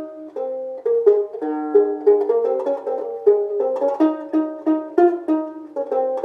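Homemade baritone resonator ukulele with a sheet-aluminum body and a 2024-T3 aluminum cone, played as a picked tune of plucked notes, several a second, with a banjo-like twang. Its strings are not yet adjusted.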